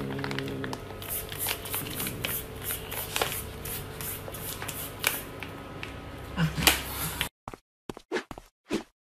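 A clear plastic bag of small dried fish crinkling and crackling as a cat paws at it and bites it through the plastic. Near the end it gives way to a few short, separate soft sounds with silence between them.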